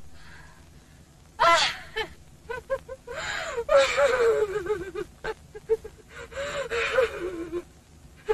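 A person's gasping, sobbing cries: a sharp gasp about a second and a half in, then two long wailing cries with falling pitch.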